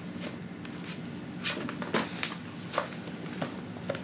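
Paperback book being handled: several short paper rustles and soft knocks at irregular moments, over a steady low hum.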